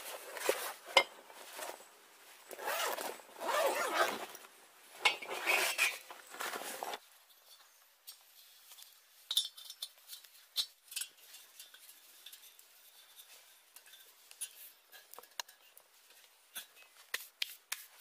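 Canvas bag rustling and scraping for the first several seconds as a steel pan is handled. After that it goes quieter, with scattered light metal clinks and taps as the pan and its stand are set up over the fire.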